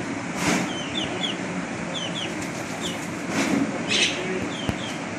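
Small birds chirping in short, high, quick chirps, often two or three in a row, repeating throughout. A few brief noisy whooshes stand out over them, about half a second in and again around three and a half and four seconds.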